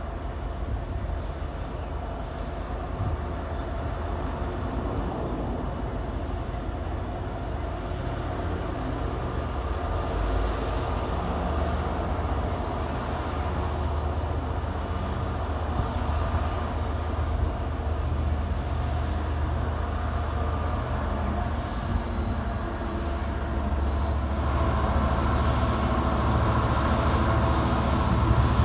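Class 66 diesel locomotives running: the two-stroke V12 diesel drone of a locomotive hauling a long train of hopper wagons slowly forward, growing louder near the end as it comes closer.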